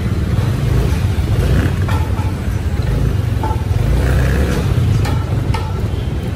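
Motor vehicle running in slow street traffic: a steady low engine and road rumble, with a few short clicks and knocks.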